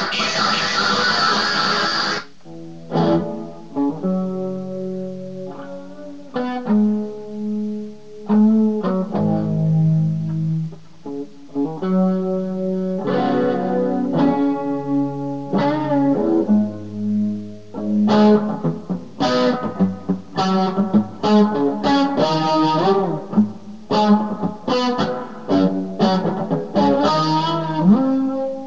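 Electric guitar played through an effects pedal. A loud strummed chord rings for about the first two seconds, then single picked notes and short phrases follow, with a few string bends.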